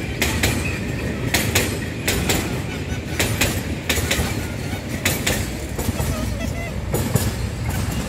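Freight train of railway tank wagons passing close by: a steady rumble of wheels on rail with repeated clickety-clack as the wheels cross the rail joints.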